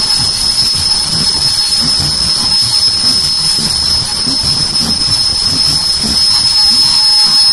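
Automatic ear-loop face mask making machine running at speed: a steady high-pitched whine over a busy low mechanical rumble and clatter.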